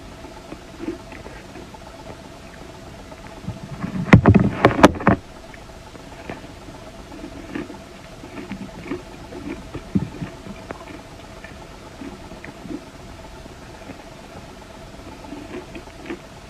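A person biting and crunching a chunk of ice coated in matcha green tea powder: a short run of loud crunches about four seconds in, then scattered quieter chewing crackles over a faint steady hum.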